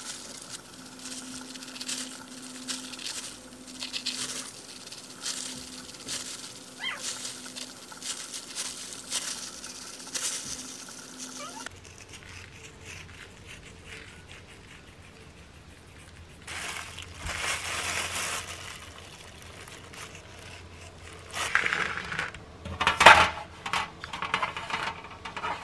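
A knife scoring the skin of raw pork belly on a paper towel: a run of short light cuts. Near the end, a metal baking tray and wire rack knock and clatter as they are handled; this is the loudest sound.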